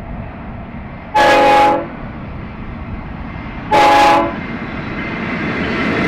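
Freight locomotive air horn giving two short blasts about two and a half seconds apart, each a chord of several tones, over the steady rumble of a train that grows louder toward the end.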